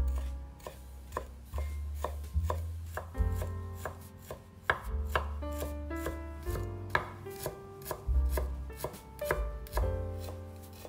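Knife chopping food on a cutting board, a steady run of sharp strokes about two to three a second. Soft piano music plays underneath.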